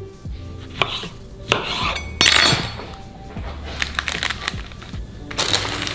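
Kitchen knife knocking a few times on a wooden chopping board as a lemon is cut, followed by short handling sounds as the wedges are set on a paper-lined serving of fish and chips. Background music plays underneath.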